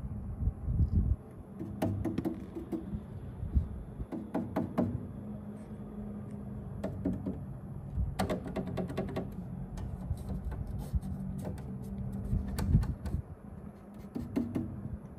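Hands handling parts inside a Bambu Lab X1C 3D printer around the bed and lead screws: clusters of small clicks and knocks every couple of seconds, over a steady low hum.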